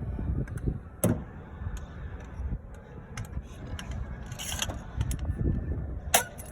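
Scattered metallic clicks and clinks of a lug wrench working lug nuts off a car wheel, with a short scrape in the middle, over a low rumble.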